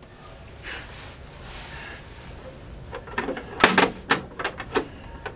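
Metal porthole deadlight being swung on its hinge and knocked against its fittings: a quiet stretch, then a quick cluster of clicks and knocks about three to five seconds in.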